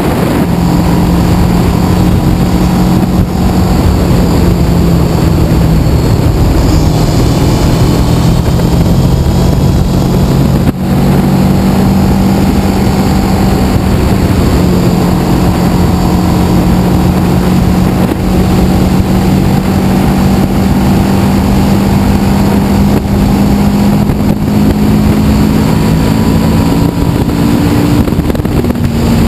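Kawasaki ER-6n's 649 cc parallel-twin engine running at a steady cruise under heavy wind rush on a chest-mounted camera. The engine note dips briefly about eleven seconds in and rises slowly near the end as the bike picks up speed.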